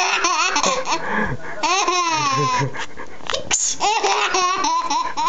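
Baby laughing in repeated bursts, with babbling and a long high squeal that rises and falls about two seconds in.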